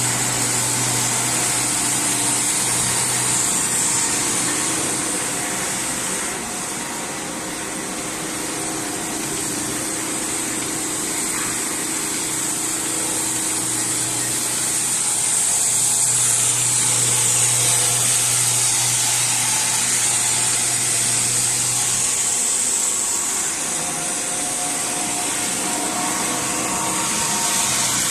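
A power grinder buffing the rubber of a tire for retreading, running continuously with a steady high grinding hiss over a low hum. The grind eases off slightly a few seconds in and again near the end.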